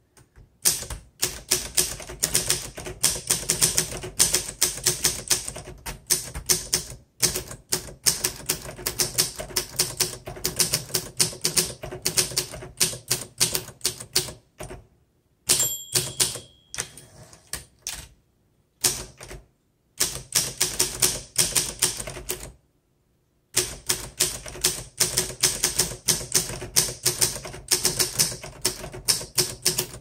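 1955 Olympia SM3 manual typewriter being typed on in quick bursts of key strikes, with short pauses between runs. About halfway through, the carriage's margin bell rings once.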